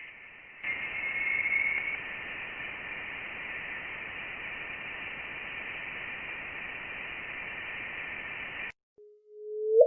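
Steady static-like hiss from a spacecraft's recording of electromagnetic signals converted to sound, with a faint high tone near the start. It cuts off suddenly near the end, followed by a short low steady tone that rises in pitch at the very end.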